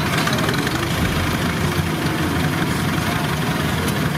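Diesel engines running steadily as a Bizon Z056 combine harvester unloads grass seed through its unloading auger into a tractor-drawn trailer: a constant low engine hum under an even mechanical noise.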